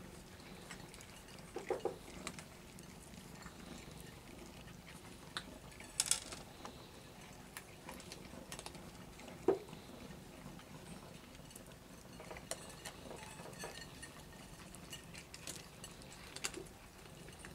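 Several cats eating dry kibble from a ceramic plate: scattered small crunches and clicks of teeth and kibble on the plate, with a few sharper clinks.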